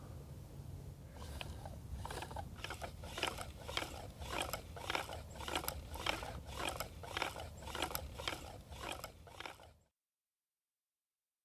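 Bow drill being worked: the spindle grinds and squeaks in the fireboard with each back-and-forth stroke of the bow, about two and a half strokes a second. The sound cuts off abruptly near the end.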